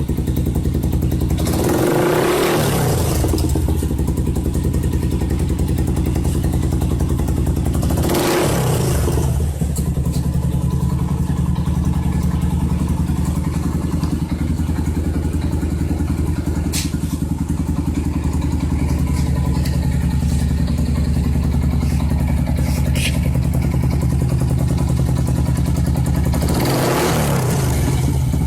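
Yamaha Y15ZR motorcycle's single-cylinder engine idling steadily, blipped three times with short revs: about two seconds in, about eight seconds in, and near the end.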